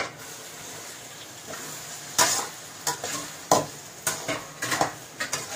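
Metal spatula knocking and scraping against a metal kadai as chopped tomatoes and onions are stirred, over a steady sizzle of frying in oil. There is one sharp knock at the start, then repeated clatters from about two seconds in.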